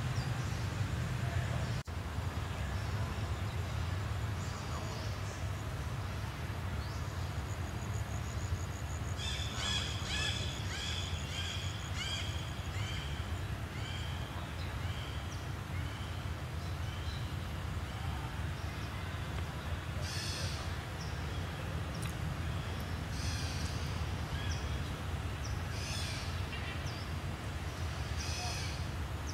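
Outdoor ambience of birds calling over a steady low rumble. About a third of the way in comes a run of short falling notes, about two a second for several seconds. Later there are sharp, hissy high calls every second or two.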